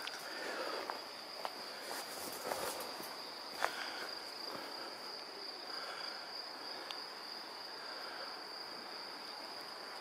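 Quiet woodland ambience: a steady high-pitched insect trill throughout, with a few faint calls and a single sharp click about three and a half seconds in.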